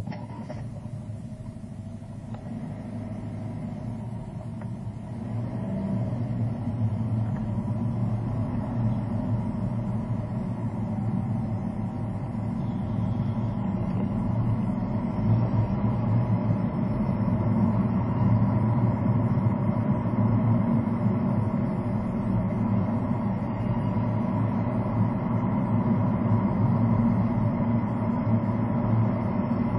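Car driving along a road, heard from inside the cabin: a low, steady engine and tyre rumble that grows louder over the first fifteen seconds or so as the car picks up speed, then holds steady. A short click at the very start.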